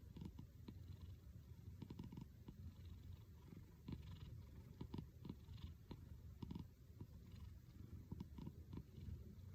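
A domestic cat purring close up: a low, continuous rumbling purr that sounds like snoring.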